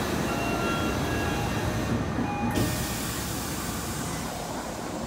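Tokyo Metro Ginza Line subway train running, heard from inside the car: a steady rumble and hiss of rail noise, with a few faint short whines in the first couple of seconds.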